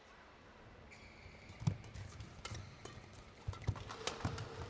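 Badminton doubles rally: rackets striking the shuttlecock and players' feet thudding and landing on the court, irregular sharp knocks and low thuds, the loudest thud about a second and a half in, over the low hum of an indoor arena.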